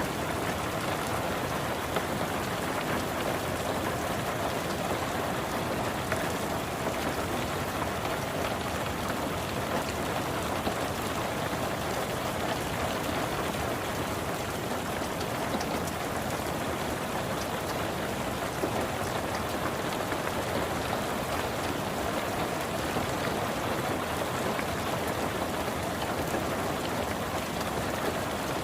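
Steady rain falling on a car's roof and windows, heard from inside the car: an even hiss with scattered ticks of single drops.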